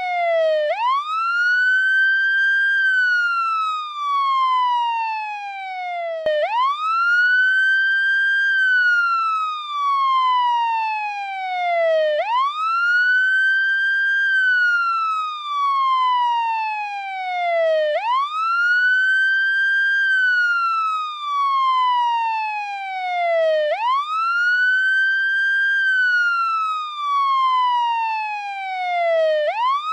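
American police siren on its wail tone, sweeping up and down over and over. Each cycle rises quickly, holds briefly and falls slowly back, and about five cycles are heard.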